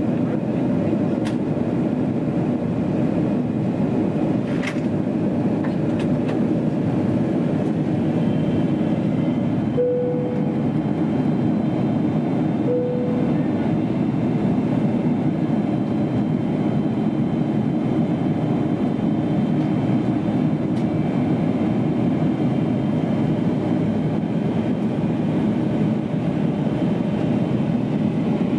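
Steady cabin noise inside a Boeing 777-300ER on descent: a dense rushing of airflow with the hum of its GE90-115B jet engines. Two brief tones sound near the middle, about three seconds apart.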